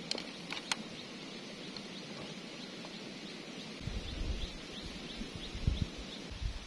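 A few light metal clicks in the first second as bolts are set into the tractor axle's seal housing, over a rural background with short high chirps repeating about three times a second. Dull low thumps come in the second half.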